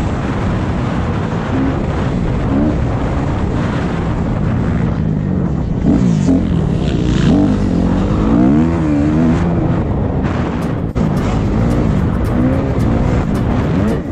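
Motocross bike engine revving up and down as it is ridden round a dirt track, its pitch rising and falling again and again with the throttle, over a steady rushing noise.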